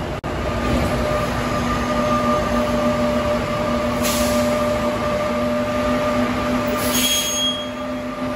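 Hybrid transit bus running with a steady whine over a rumble. Two short hisses of air come about halfway through and near the end, and a short high beep sounds near the end.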